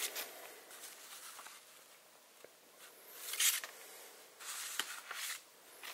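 Old paper letters rustling as they are handled and leafed through, in a few short swishes, the loudest about three and a half seconds in.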